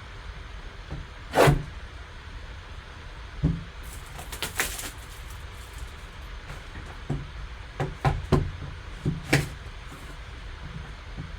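A sports card box and its packaging being handled and opened on a table: scattered sharp knocks and taps, two louder ones about one and a half seconds in and near the end, and a quick run of clicks and crinkles around the middle.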